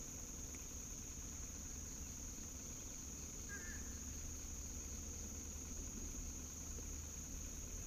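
Swamp insect chorus: a steady, high, even drone, with one short chirp about three and a half seconds in.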